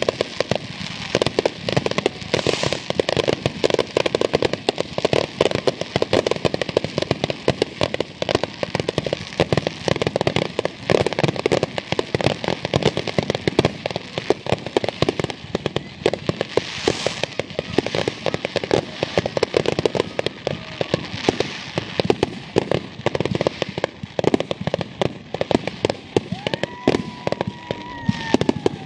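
Fireworks finale barrage: aerial shells banging and crackling in rapid, almost continuous succession, with the spraying of ground fountains. A gliding whistle rises and falls near the end.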